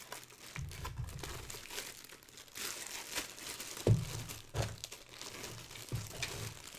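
Cardboard box and packaging being handled: crinkling and rustling, with scattered clicks and a few dull knocks as parts are packed back into the box.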